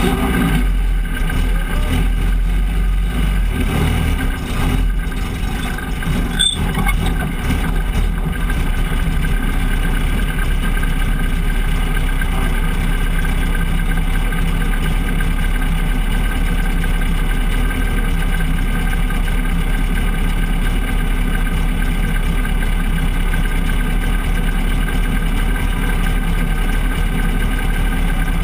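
Race truck's engine idling steadily, heard from inside the cab, with a couple of brief knocks in the first seven seconds.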